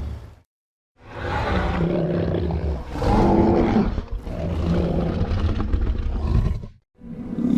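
Film sound effect of King Kong roaring: one long, low, rough roar of about six seconds that starts about a second in after a short gap, dipping briefly a couple of times along the way.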